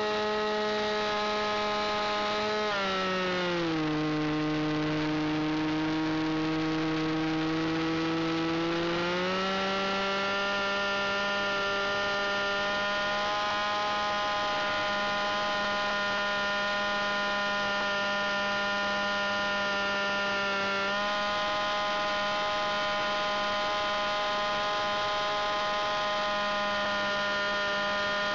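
Single-cylinder engine of an aerobatic RC model plane, picked up close by the onboard camera and running steadily in flight. About three seconds in its note drops as the engine slows. It stays low for about six seconds, then rises back to its former pitch and runs evenly on.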